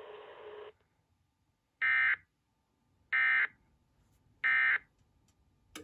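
Three short, identical bursts of EAS digital data tone, the SAME End of Message code, each about a third of a second long and a little over a second apart. They mark the end of the emergency alert. Before them a hiss cuts off sharply about half a second in, and a faint click comes near the end.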